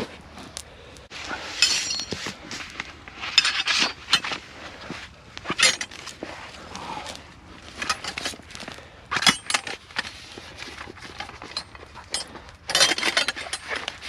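Irregular clinks and scrapes of metal camp cookware and utensils being handled, with several sharper rattles spread through.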